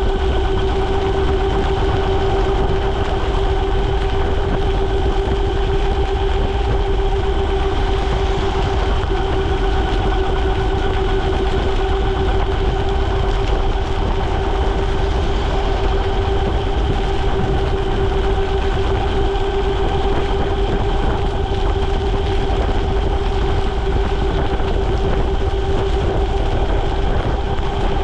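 Ariel Rider Grizzly e-bike's hub motors whining at a steady pitch while cruising at about 33 mph, over a constant low rumble of wind and tyres on the wet road.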